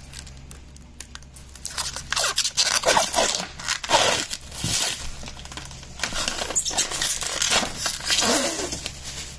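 Protective plastic film being peeled off a clear plastic box panel. Faint picking at the corner, then from about two seconds in a long run of loud, uneven crinkling and crackling as the film is pulled away.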